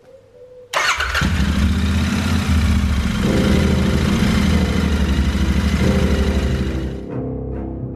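Royal Enfield Interceptor 650 parallel-twin engine, converted to an 865 cc big bore, starting up just under a second in and then running steadily with an even pulsing beat.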